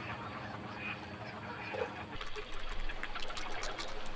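Water splashing and trickling, with a few faint bird calls early on; the small splashes come thicker from about two seconds in.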